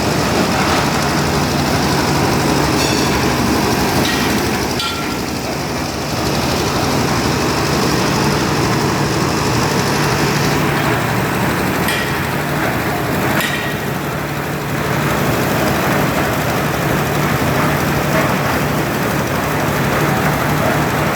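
Concrete mixer machine running steadily: a constant low engine hum under a rattling, clattering din, with a few sharp metal clanks.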